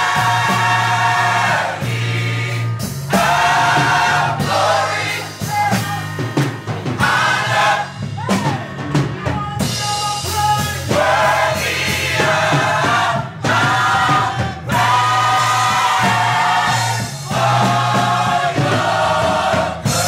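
Gospel mass choir singing in phrases of a few seconds each, backed by bass and drum kit.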